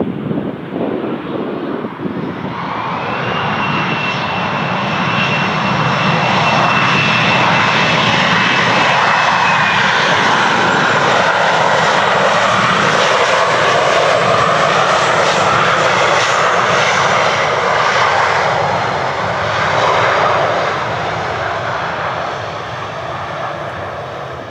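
Loud engine roar that builds over the first few seconds, holds steady, then fades near the end, with a thin high whine that drops slightly in pitch about ten seconds in.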